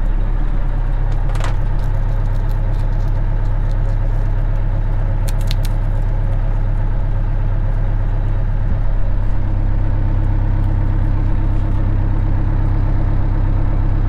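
Two-stroke Detroit Diesel engine of an old truck running steadily, heard from inside the cab, with a few light clicks over it.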